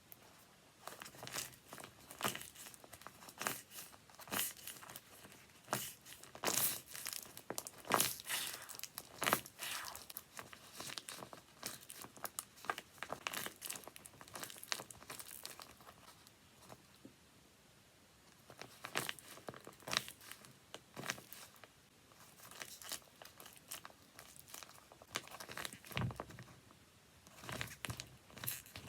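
Handmade paper squishies being squeezed, giving irregular crinkling and crackling of paper and tape, with a quieter pause about halfway through.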